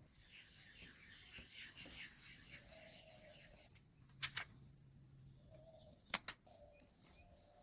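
Faint scratching and rubbing of handwork on a small object, then two pairs of sharp clicks a couple of seconds apart.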